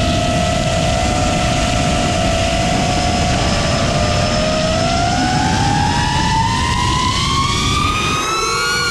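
Multirotor drone's electric motors and propellers whining at flight speed over a steady rush of air noise. The pitch holds level at first, then climbs steadily through the second half as the throttle is opened up.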